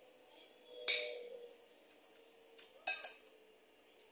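Metal spoon clinking against a plate twice, about two seconds apart, as food is scooped up.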